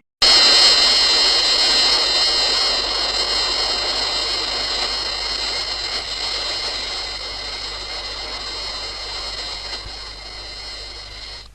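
Gigan sound effect from the Showa Godzilla films: a steady, high, jet-like whine made of several wavering tones over a hiss, fading out slowly over about eleven seconds.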